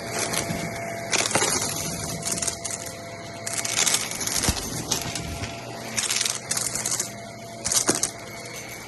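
Shark vacuum cleaner running over carpet, with loud crackling, rattling bursts several times over as it sucks up small, hard Dippin' Dots beads.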